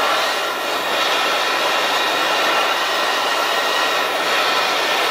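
Handheld gas torch burning with a steady hiss, its flame heating a steel bracket to heat-straighten a warp out of it.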